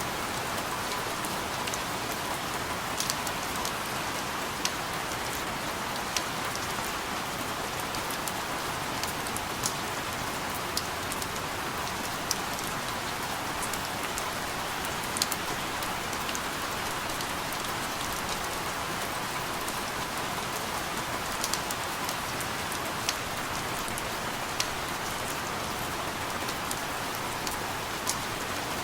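Steady rain falling, an even hiss with scattered sharper drop ticks of individual raindrops hitting a surface.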